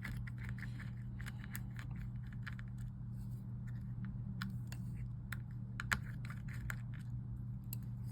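Small irregular clicks and taps of hand tools working on the phone's internal parts and plastic frame, over a steady low hum.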